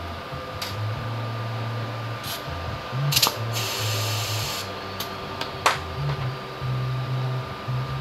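Air hissing for about a second at a scooter's front tyre valve during a tyre pressure check, among a few sharp metallic clicks, over a steady low hum.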